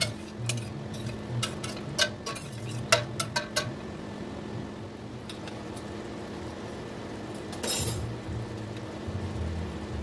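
Metal ladle clinking against the side of a stainless steel pot while stirring sauce: a quick run of sharp clinks over the first few seconds, then they stop, with one short scraping rush a little before the end.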